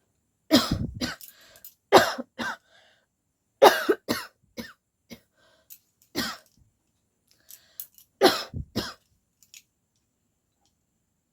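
A woman forcing harsh coughs with no cold behind them, in short clusters of several coughs each. The clusters come about half a second in, at about two and four seconds, a smaller one around six seconds, and a last loud one just after eight seconds.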